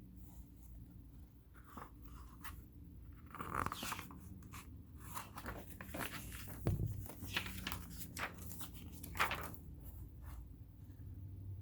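Light handling noises on a sewing machine: scattered clicks, rubs and rustles as its parts and the thread are handled, busiest in the middle.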